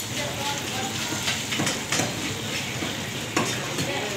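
Fish pieces deep-frying in a wide, shallow karahi of hot oil: a steady sizzle dotted with sharp crackles.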